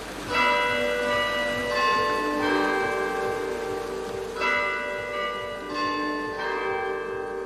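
Church bells ringing: several bells struck in turn every second or two, each tone ringing on and overlapping the next.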